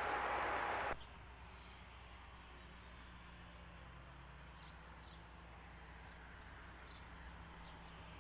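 Air-band radio hiss at the tail of a tower transmission, cutting off abruptly about a second in. After it comes faint open-air background: a steady insect chirping, a few high chirps a second, over a faint low hum.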